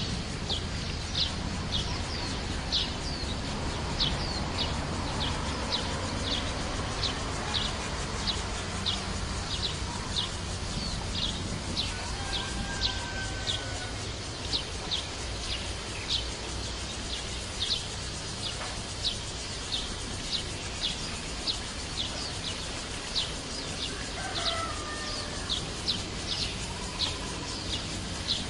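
A bird repeating a short, high chip call steadily, roughly twice a second, over a constant background hiss, with a few faint whistled notes from other birds now and then.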